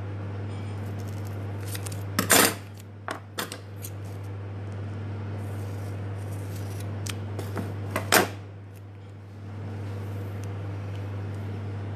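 Scissors snipping tape in a few short, sharp cuts, the loudest about two seconds in and again about eight seconds in, over a steady low hum.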